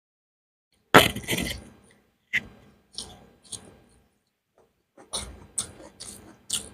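Close-up eating sounds of someone eating beef biryani: short bursts of chewing and lip smacks, with a longer, louder burst about a second in.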